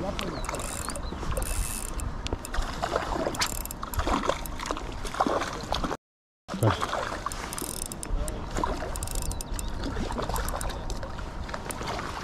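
Spinning reel being cranked on a lure retrieve, its gears whirring and clicking, over a steady low rumble. The sound cuts out completely for about half a second around the middle.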